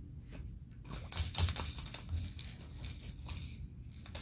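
A plastic baby rattle toy being handled and shaken, a quick irregular clatter of small clicks starting about a second in, with a few soft bumps.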